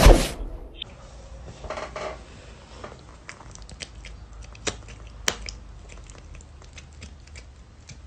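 A loud thump at the very start, then a cat's small clicking, smacking chewing sounds as it mouths and chews a strand dangling into its mouth.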